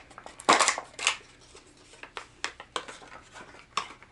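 A fishing-lure package being pulled open by hand: crinkling and tearing, loudest about half a second in, then a run of sharp clicks and snaps as the spoon comes free.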